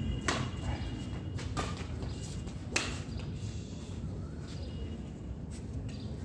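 Badminton rally: sharp racket strikes on the shuttlecock about every second and a bit, the loudest a little under three seconds in and the later ones fainter, with players' footsteps on the court.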